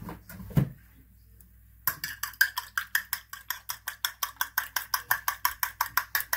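Fork beating a raw egg in a ceramic plate: fast, even clinks of metal on china, about five or six a second, starting about two seconds in. A couple of knocks come just before.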